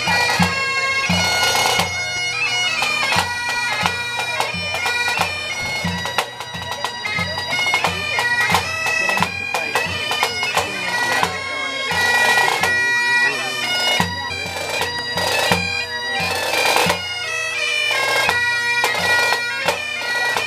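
Two sets of Highland bagpipes playing a tune over their steady drones, with marching snare drums beating along.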